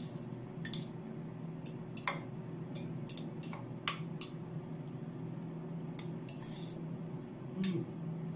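A metal spoon stirring couscous in a stainless steel bowl, with scattered, irregular clinks and scrapes of spoon against metal, over a steady low hum.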